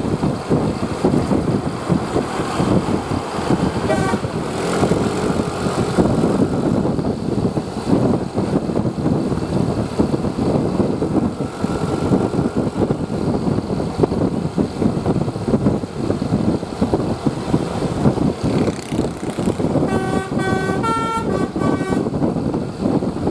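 Steady rumble of a moving bus with wind on the microphone. About twenty seconds in, the bus's basuri telolet horn plays a quick run of several musical notes.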